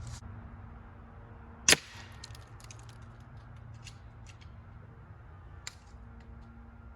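A single sharp shot from a .25 calibre AEA Challenger regulated PCP air rifle about two seconds in, followed by a scatter of faint small clicks and a weaker crack near the end.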